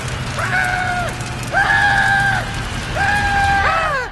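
A high cartoon falsetto voice cries out in three long, held wails of about a second each, with a falling cry near the end, over a steady low rumble.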